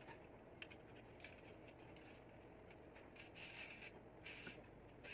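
Faint handling sounds of a bicycle chain and rear wheel being worked by gloved hands. There are a couple of light clicks in the first second or so, then soft scraping about three and four seconds in.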